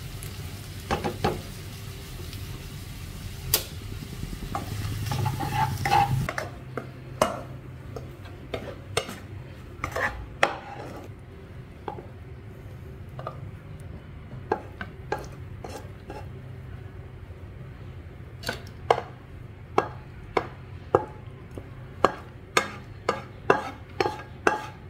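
Stir-fried squid sizzling in a stone-coated nonstick wok while a metal spatula stirs and clacks against the pan. About six seconds in the sizzle stops suddenly. From then on the spatula taps and scrapes the wok as the squid is pushed out onto a plate, with a quick run of knocks near the end.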